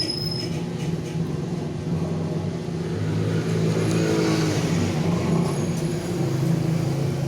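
A motor vehicle engine running nearby, its pitch easing up and down a little as it revs.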